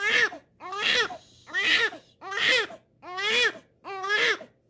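Infant crying in a run of short, regular wails, about six of them, each rising and then falling in pitch: fussy crying from a baby whose temperature has just read normal.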